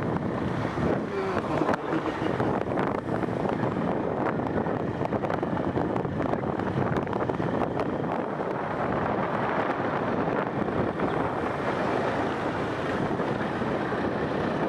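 Steady wind rushing over the microphone, mixed with the running noise of a moving vehicle.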